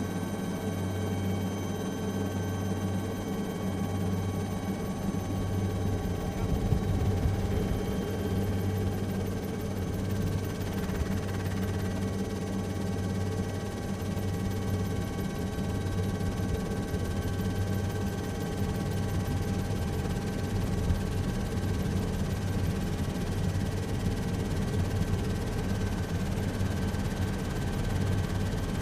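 Helicopter running steadily: a low, evenly pulsing rotor beat under a constant turbine whine made of several steady high tones.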